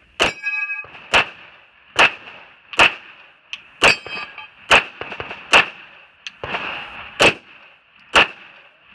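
Glock 17 9mm pistol fired in a steady string, about nine sharp shots just under a second apart. Steel targets ring with a clang after the first shot and again around four seconds in.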